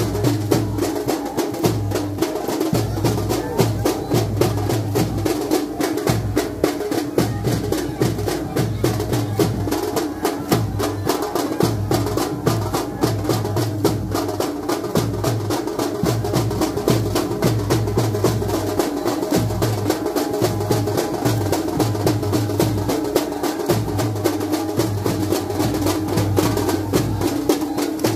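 Loud, fast drumming from a percussion group, dense sharp strokes over a repeating deep beat that keeps going without a break.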